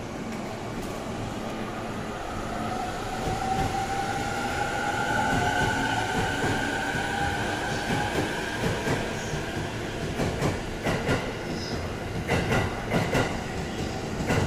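JR East E231-series electric multiple unit pulling out of a station: its inverter whine rises gently in pitch as it starts to accelerate, then wheels clack over rail joints from about eight seconds in as the cars pass by.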